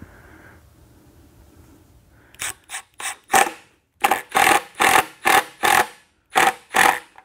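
Cordless drill/driver driving the screws that fasten a subwoofer driver to its enclosure, in short trigger bursts starting a little over two seconds in: a few spaced spins, then about eight quick bursts roughly every half second as the screws run down and seat.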